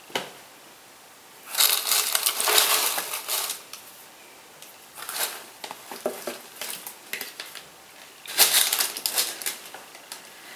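Packaging being handled, rustling and crackling in three spells with short pauses between, the first the loudest.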